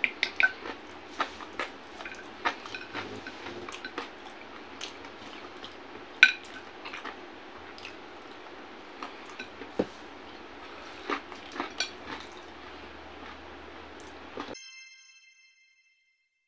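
Close-up sounds of a man eating with his hands: chewing and lip-smacking, with many short clicks and an occasional light clink of dishware. The eating sounds stop near the end and a brief ringing tone follows.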